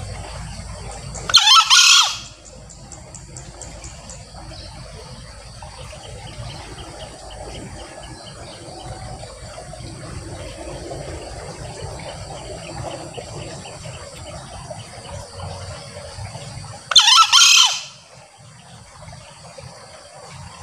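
Male green junglefowl crowing twice, each a short, shrill call lasting under a second: one shortly after the start and one about fifteen seconds later, near the end.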